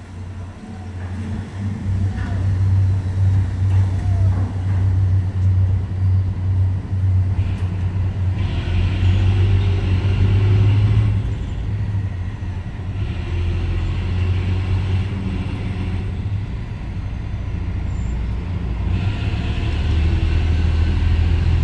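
Heavy engine running with a steady low drone, with stretches of added hiss.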